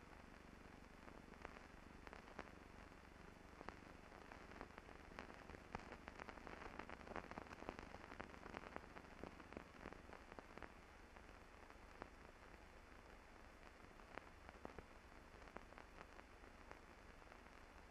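Near silence: faint steady hiss with scattered small clicks and crackles, the surface noise of an old film soundtrack.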